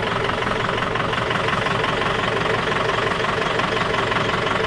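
A classic car's engine idling steadily.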